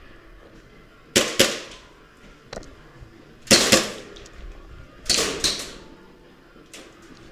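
Airsoft guns firing: a run of sharp shots, mostly in pairs and short clusters, each with a brief fading tail, the loudest group about halfway through.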